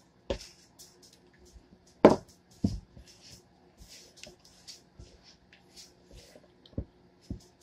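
Hands working pie crust dough in a mixing bowl: soft squishing and scraping rustles, with a few dull knocks, the loudest about two seconds in.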